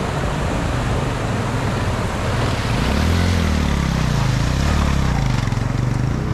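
A motor vehicle engine comes in about two and a half seconds in and revs up and down as it approaches, over the steady rush of a swollen mountain stream.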